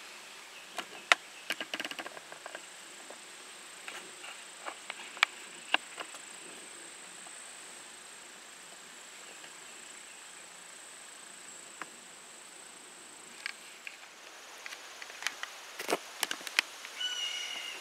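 Quiet blind ambience: a steady thin high-pitched whine, which stops about three-quarters of the way through, under scattered sharp clicks and rustles of handling. A brief pitched chirp comes near the end.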